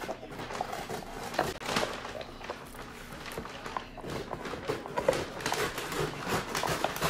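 Gift-wrapping paper rustling and crinkling as it is handled and unrolled, a run of irregular crackles with a few soft knocks.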